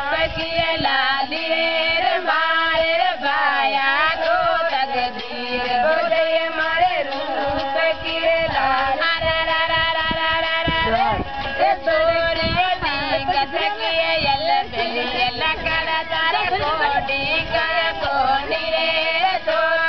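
Rajasthani Kalbelia folk music: a voice sings long, wavering, ornamented notes over a steady low drone, without a break.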